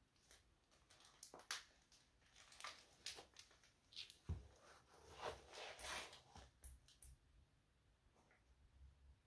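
Faint, irregular crunching and crackling as black Nike Air Max Plus sneaker soles step on and grind brittle splinters into a laminate floor, with a soft footfall thud about four seconds in. The crackles thin out near the end.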